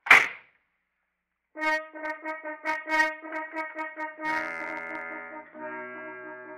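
A sharp bang at the very start, then, after about a second of silence, a brass music bridge: quick repeated staccato trumpet notes for a couple of seconds, then a held brass chord with lower notes added.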